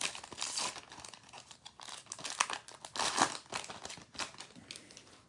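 A trading card pack wrapper being torn open and crinkled by hand, in irregular crackles that die down near the end.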